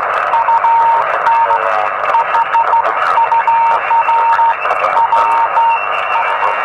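Morse code (CW) signal received on the 40-metre band through a Yaesu portable transceiver's speaker: a single steady tone keyed on and off in dots and dashes over a constant band-noise hiss.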